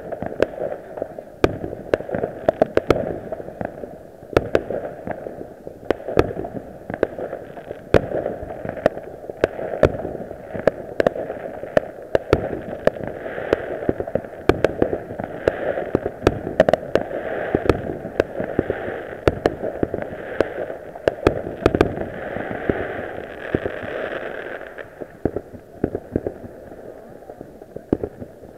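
Many fireworks going off at once: a continuous rumble of far-off bursts with frequent, irregular sharp bangs and crackling.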